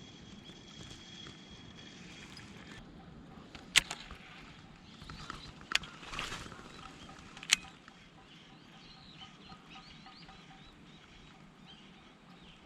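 Steady outdoor background noise broken by three sharp clicks about two seconds apart, with faint bird chirps in the second half.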